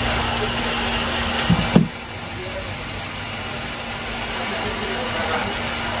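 Steady background hiss and hum, with two dull knocks about a second and a half in from the phone being handled, after which the hiss drops away sharply and slowly returns.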